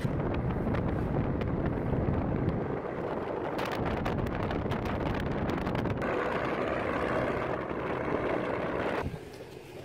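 Riding in an open-sided passenger jeepney: the engine runs and wind buffets the microphone, in a few short clips that change abruptly about six seconds in and drop to a quieter stretch about nine seconds in.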